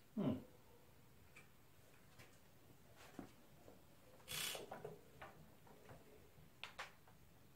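Scattered light clicks and small metallic knocks from hands working at the fuel mixer of a Nelson Brothers hit-and-miss engine that is not running, with a short low thud just after the start and a brief rustle about four seconds in.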